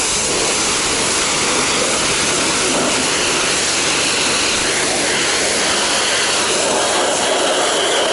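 Self-service car-wash pressure-washer wand spraying a high-pressure jet of water onto a car's rear bodywork and glass: a loud, steady hiss without a break.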